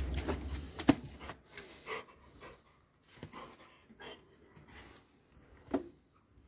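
Doberman pinscher panting and moving about close to the microphone, with a few short, sharp knocks. The loudest comes about a second in, and another comes near the end.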